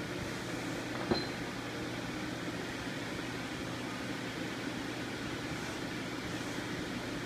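Powered-up Sharp ST-40 CNC lathe running without cutting, its chuck spinning: a steady machine hum, with a single click about a second in.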